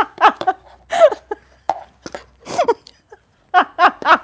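A woman laughing heartily in rapid ha-ha bursts, breaking off briefly near the middle and then laughing again.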